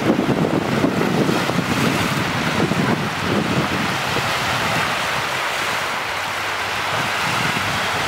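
Small lake waves breaking and washing up a sandy beach. Wind rumbles on the microphone, heaviest in the first few seconds.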